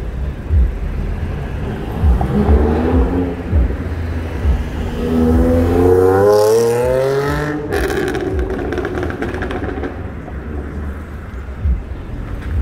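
A motor vehicle's engine revving up as it accelerates, its pitch rising steadily for about five seconds before cutting off sharply, over a steady street-traffic rumble with scattered low thumps.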